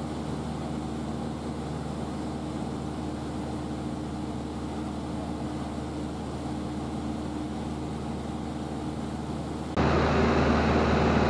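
Reims Cessna 152's four-cylinder Lycoming engine and propeller droning steadily in cruise, heard from inside the cabin. Near the end the drone suddenly becomes louder and fuller.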